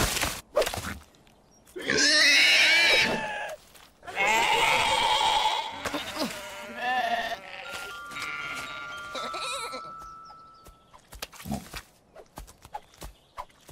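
Cartoon sheep bleating in two loud stretches, each lasting over a second, then quieter music with a couple of steady held notes.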